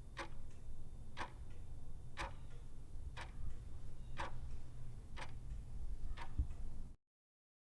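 Steady ticking, one tick a second like a clock, over a low hum. The sound cuts off to total silence about seven seconds in.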